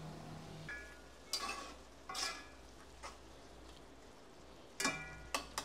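A utensil stirring chicken gizzards in tomato sauce in a pot, with a faint sizzle from the pan. About half a dozen sharp clinks and scrapes of the utensil against the pot come at uneven intervals, a couple of them ringing briefly.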